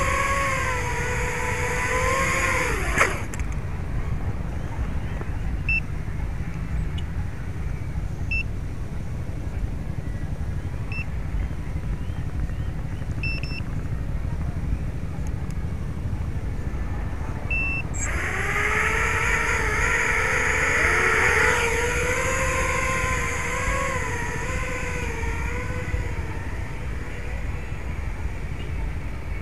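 Small FPV racing quadcopter's brushless motors and propellers whining, then spinning down sharply about three seconds in. Steady low wind rumble on the microphone follows, with a few faint short beeps. The motors spin up again with a rising, wavering whine about two-thirds of the way through and fade near the end.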